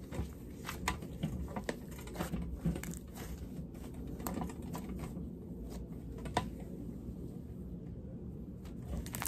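Thick cloud-textured slime being kneaded, folded and stretched by hand on a tabletop, giving scattered small crackles and clicks.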